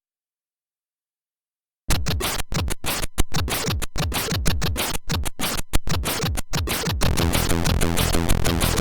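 Commodore 64 SID chip demo music starting after about two seconds of silence: a run of choppy noise-drum hits broken by short gaps, then at about seven seconds a full chiptune with a steady bass line and melody comes in.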